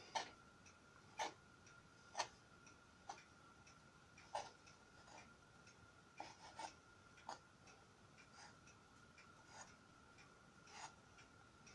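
Kitchen knife cutting through logs of soft curd-cheese dough, its blade tapping a wooden cutting board with each slice: faint, short taps about once a second, now and then two close together.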